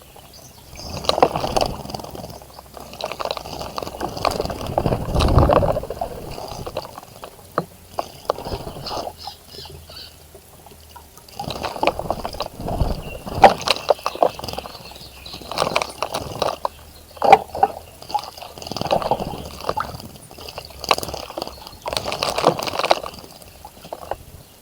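Birds bathing in a bird bath, splashing water in irregular bursts of a second or two, with a quieter spell about a third of the way in.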